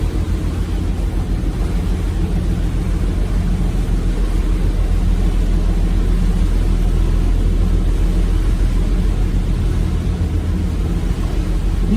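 Sightseeing boat's engine running steadily under way: a constant low drone with an even rushing hiss of wind and water over it.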